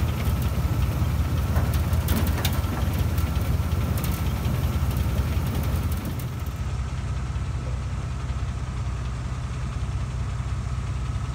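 Flat-fender military Jeep engine running as it drives over old, cracked concrete, with a steady low rumble and a few sharp rattles and knocks in the first couple of seconds. About six seconds in, the sound changes to a slightly quieter, steady engine idle.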